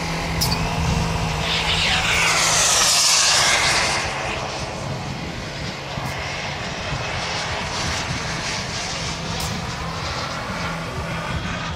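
Turbine-powered radio-controlled model jet passing overhead: a steady rushing jet noise that swells to its loudest about three seconds in, then eases off as the model flies away, with a steady low hum underneath.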